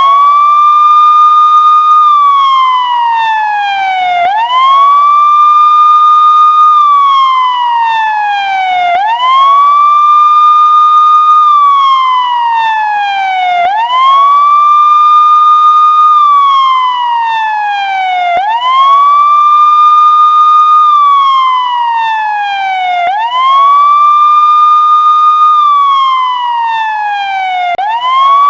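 Loud emergency-vehicle siren in wail mode: the tone sweeps quickly up, holds high for about two seconds, then slides slowly down, repeating about every four and a half seconds.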